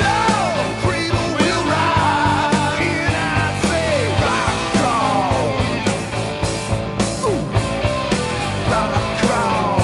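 Rock music with a steady drum beat and singing, with sliding, falling melody lines over it.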